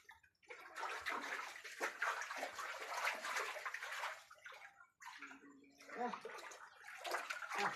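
Floodwater rushing and pouring with a steady noise for the first few seconds, then dropping away, with brief voices near the end.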